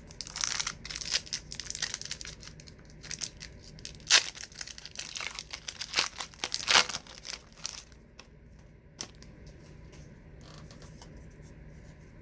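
A trading card pack's wrapper being torn open and crinkled: a dense run of rustling and sharp crackles for about eight seconds, then only a few faint clicks.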